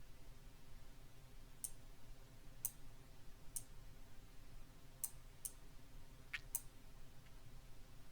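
Computer mouse clicks, about eight sharp, irregularly spaced clicks over a few seconds, over a faint low hum.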